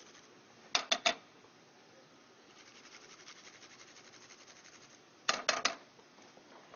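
Garlic grated on a hand-held metal rasp grater over a saucepan: a faint, fast scraping rhythm in the middle, set between two quick groups of three sharp metallic clicks about a second in and near the end.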